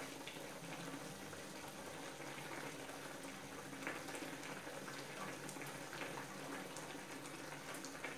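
Sausages in tomato sauce simmering in a frying pan, a steady low bubbling with scattered small pops.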